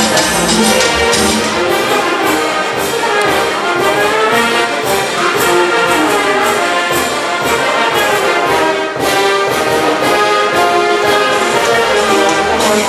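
Brass band playing a dance tune, trumpets and trombones holding melody notes over a steady percussion beat.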